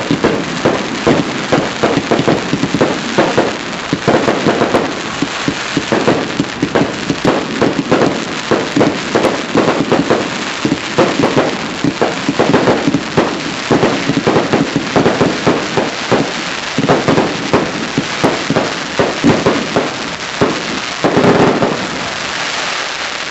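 Fireworks display: a dense, continuous barrage of bangs and crackling, with a heavier burst about 21 seconds in before it eases off near the end.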